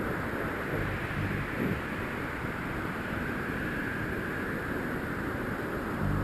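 Steady rush of airflow over the camera microphone of a paraglider in flight, with a few low buffets about a second in.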